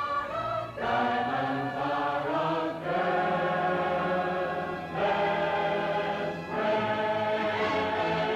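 Orchestral film music with a choir singing long held chords, moving to a new chord every second or two.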